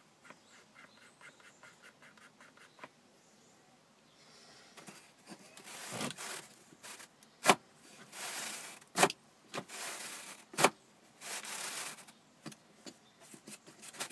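Cardboard parts of a homemade Barrett M82A1 model worked by hand: a quick run of faint ticks, then several rustling scrapes of cardboard sliding on cardboard and a few sharp clicks.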